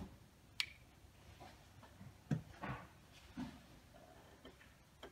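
Faint handling sounds: a sharp click about half a second in, then a few soft knocks as the wireless hitch camera is set down on the tabletop.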